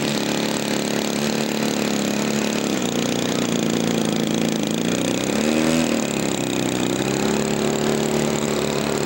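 Small model airplane engine running at a steady pitch, which dips and rises briefly about five seconds in and again a little later.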